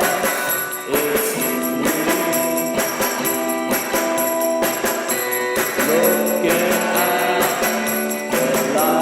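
Music: a song with a steady beat of repeated percussion strokes under sustained melodic tones.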